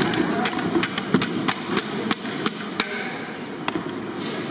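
Repeated sharp knocks, about three a second, thinning out after about three seconds, over a steady low background rumble.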